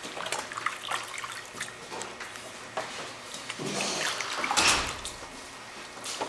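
Wet hands dipping and sloshing in a potter's water bucket at the wheel, with drips and small splashes; the loudest splashing comes about four and a half seconds in.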